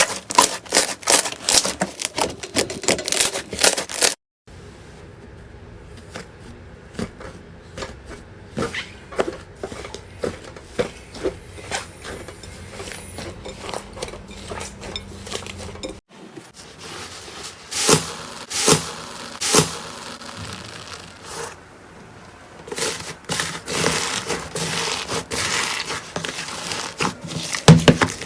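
Slime being squeezed, poked and stretched by hand, making quick runs of sharp clicks and pops. The sound cuts abruptly about four seconds in and again about sixteen seconds in, with a quieter stretch of scattered clicks between.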